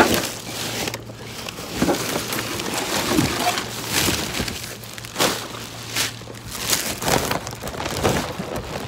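Black plastic garbage bags rustling and crinkling, with cardboard produce boxes scraping and knocking, as bags are handled and pulled out of a dumpster. A faint steady low hum runs underneath.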